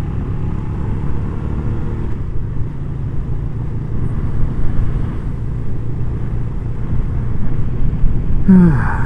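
Suzuki SV650S motorcycle on the move: its V-twin engine running steadily, mixed with wind noise on a helmet-mounted microphone. A short falling tone comes near the end.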